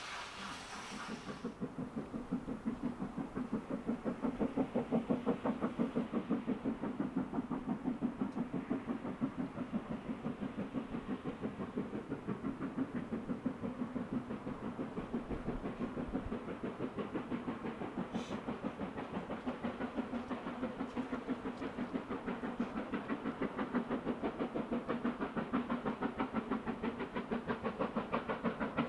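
Steam locomotive working hard out of sight, a rapid, even beat of exhaust chuffs that starts about a second and a half in and grows louder near the end. Before it, a brief hiss like wind.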